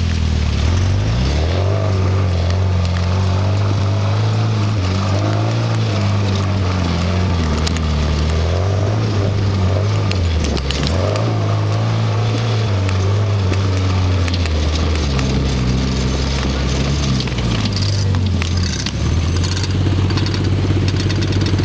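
Off-road vehicle's engine working hard up a dirt trail, its pitch rising and falling several times as the throttle opens and eases, over a constant rushing noise of the ride.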